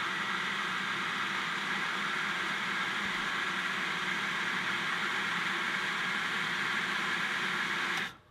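Everbilt 1/2 HP shallow-well jet pump running steadily as it pumps water into its 6-gallon pressure tank, then shutting off on its own abruptly near the end: the tank has reached pressure and is full.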